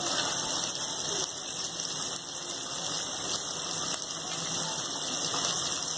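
Sliced onions frying in hot oil in a pot: a steady sizzling hiss.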